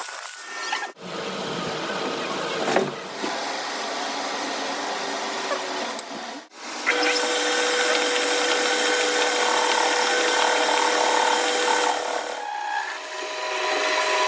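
Power tool working on the metal of a steel axle spindle, running steadily in several edited segments that cut abruptly about a second in and again at about six and a half seconds; from seven seconds on it carries a steady tone.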